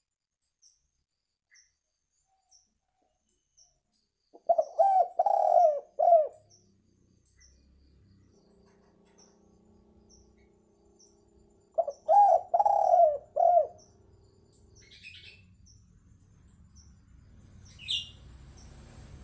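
Spotted dove (tekukur) cooing: two phrases of four or five deep coos each, the first about four seconds in and the second about twelve seconds in.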